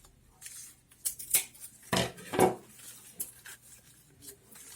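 Scissors snipping and palm strips rustling and crackling as they are handled and trimmed, with the two loudest snips about two seconds in and half a second apart.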